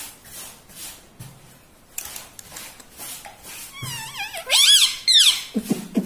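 Rose-ringed parakeet calling: quiet at first, then a run of loud, squawky calls whose pitch bends up and down about two-thirds of the way in, with a lower-pitched bending call just before the end.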